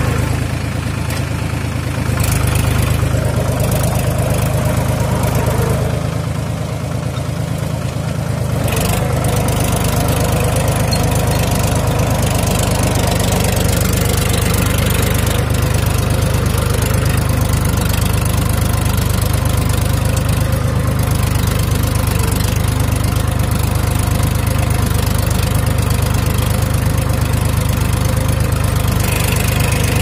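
Farm tractor's diesel engine running steadily, heard up close from the seat as the tractor drives across the field. It eases off a little for a couple of seconds about six seconds in.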